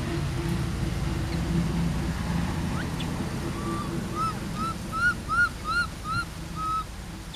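Infant macaque calling: a run of about seven short, arched, high-pitched cries, about three a second, starting about four seconds in, after a few single calls earlier. A steady low hum runs underneath.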